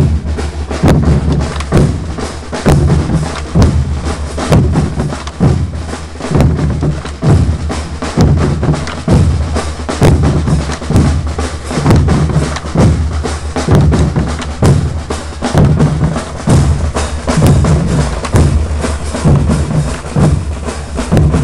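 Marching band drum section playing a steady marching beat: bass drums hit evenly on the beat, with snare drums filling in between.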